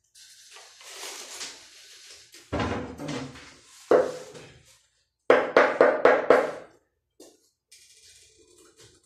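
Hammer driving a chisel against ceramic floor tiles to break them loose and lift them. There is a single sharp strike about four seconds in, then a quick run of about six ringing strikes.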